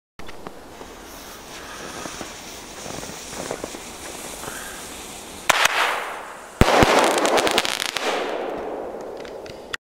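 Old fireworks dating from 1998 going off: a low hiss and crackle at first, then a sharp bang about five and a half seconds in followed by a rushing hiss, and a second bang about a second later that sets off loud, dense crackling fading away over about three seconds.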